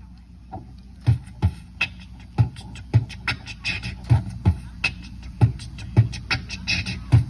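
Beatboxing through a microphone and PA: a mouth-made drum beat of deep kick thumps and sharp snare clicks, starting about a second in and keeping a steady rhythm.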